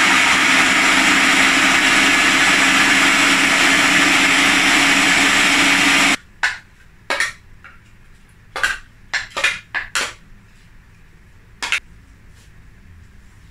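Electric food processor running steadily as it chops onion, then cutting off suddenly about six seconds in. After it stops come several sharp plastic knocks and clatters as the processor bowl and lid are handled and lifted off the base.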